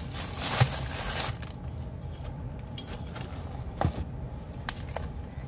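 Clear plastic packaging crinkling and rustling as it is pulled off a metal easel part, loudest for the first second and a half. A few light knocks follow near the end.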